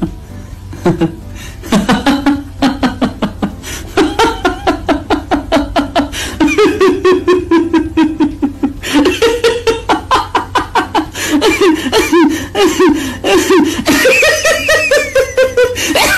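Laughter building from short chuckles to fast, hard laughing that climbs in pitch near the end.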